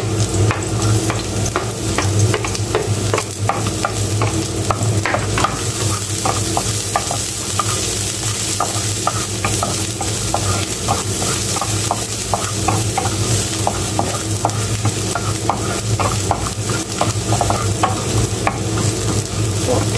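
Ginger and garlic sizzling in olive oil in a nonstick frying pan, with a wooden spoon stirring and scraping against the pan in quick, repeated clicks.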